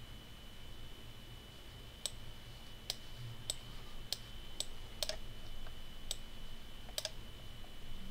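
Sharp clicks at a computer, about eight of them at uneven gaps of half a second to a second, starting about two seconds in. A faint steady high whine and a low hum run underneath.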